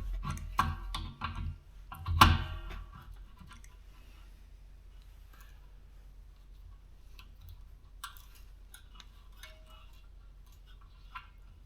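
Metal tool clinking on the air compressor's fittings while the overpressure safety valve is unscrewed: one loud metallic clank with a short ring about two seconds in, then faint scattered clicks.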